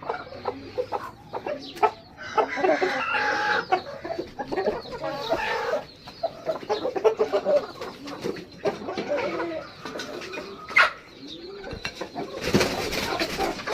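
Aseel chickens clucking and calling over one another in short, irregular calls. Late on there is a single sharp knock, followed near the end by a brief burst of rustling noise.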